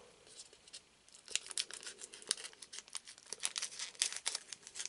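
Foil trading-card booster pack wrapper crinkling and tearing as it is handled and opened, a run of sharp crackles starting about a second in.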